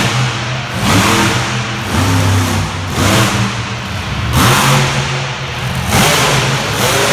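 Monster truck engine revving hard in repeated bursts, about one a second, rising and falling over a steady low running note.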